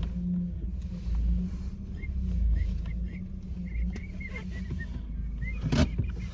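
Steady low engine and road rumble inside a car's cabin as it rolls slowly, with a string of faint short chirps in the middle and one sharp click near the end.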